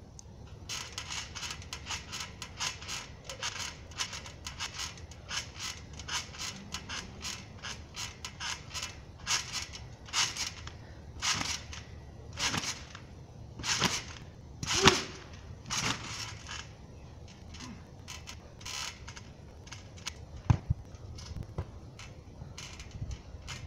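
Trampoline springs creaking over and over as someone bounces: quick short creaks at first, then slower, louder ones about a second apart. A few low thumps near the end.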